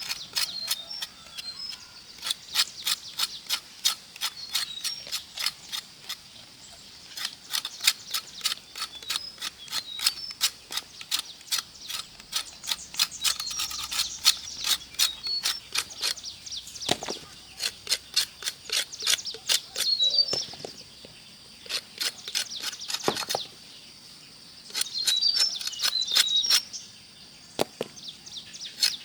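Quick, regular cutting strokes, about three to four a second, pausing briefly a few times, with birds chirping in the background.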